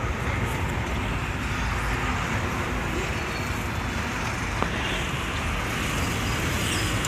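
Steady low rumble and road noise of a moving bus, heard from inside a sleeper berth, with one faint tick about two-thirds of the way through.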